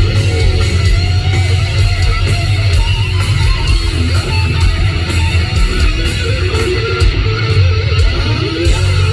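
Loud hard rock music: distorted electric guitar and bass over a steady drum beat.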